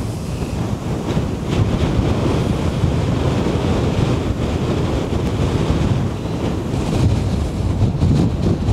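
Wind buffeting the microphone: a steady, gusting low rumble with no distinct events.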